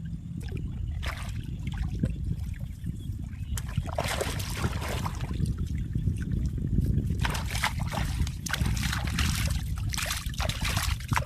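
Water splashing and trickling in two spells, one about four seconds in and a longer one from about seven seconds in, over a steady low rumble.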